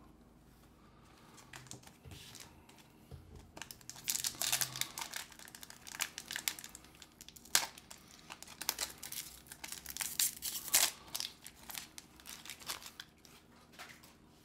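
Pokémon booster pack wrapper crinkling and tearing as the pack is opened: a dense crackle that starts about four seconds in and runs until shortly before the end.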